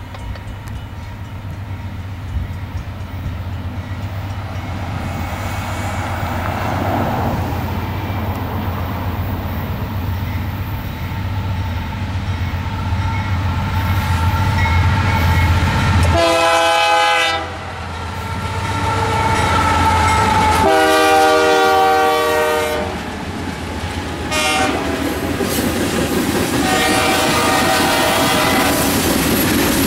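Diesel locomotives of a loaded coal train, led by a Canadian Pacific unit, rumble louder as they approach. The horn sounds three times, a short blast, then a longer one, then a weaker one near the end, sounded for a grade crossing. The wheels clack on the rails as the train passes.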